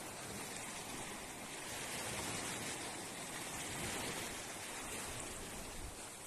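Small waves washing up onto a sandy beach: a steady hiss of surf.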